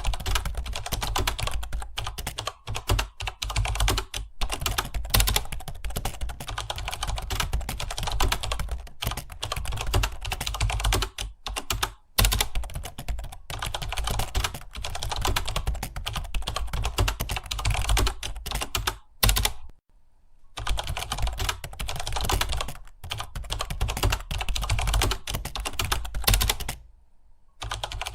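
Rapid, continuous typing on a computer keyboard, dense key clicks with short pauses, one just before the twenty-second mark and another near the end.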